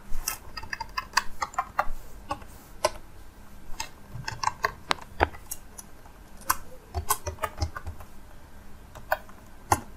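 Computer keyboard typing: irregular keystroke clicks, some in quick runs and some spaced out with short pauses.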